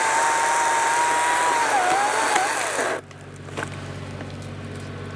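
Chainsaw running at high revs while cutting into a tree stump, its pitch dipping briefly and then falling before it cuts off abruptly about three seconds in. Underneath, the John Deere 755 compact tractor's engine idles steadily.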